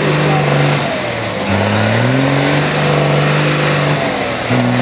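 Iveco trial truck's diesel engine working hard under load in mud. Its note dips about a second in, climbs and holds high, then drops again near the end.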